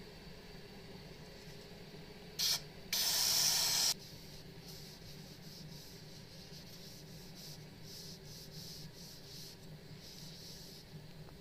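Aerosol spray can spraying onto a black and white micarta knife handle to impregnate it: a short puff, then a second-long hiss. Afterwards a cloth rubs softly over the handle.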